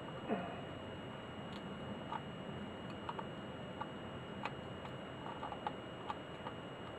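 Faint, irregular small clicks and ticks of a hand tool working against the thin bent-over metal rim that holds the dosemeter's bezel, over a steady background hiss.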